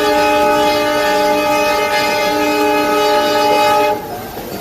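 Locomotive air horn blowing one long, loud, steady blast that cuts off suddenly about four seconds in, followed by the quieter running noise of the train.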